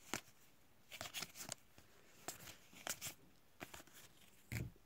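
A stack of trading cards being handled and flipped through by hand: faint, scattered clicks and soft rustles of card stock, with a slightly fuller one near the end.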